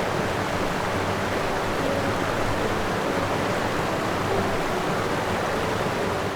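A steady rushing noise that starts just before and cuts out just after, with faint background music underneath.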